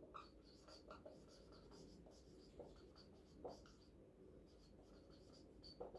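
Faint, irregular short scratches of a marker pen writing on a whiteboard.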